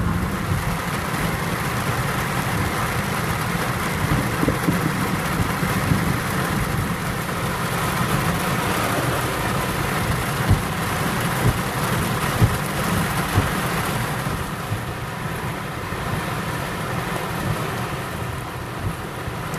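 Heavy rain on a moving car and tyre noise on the wet road, heard from inside the cabin, with a few sharp knocks about a second apart around the middle.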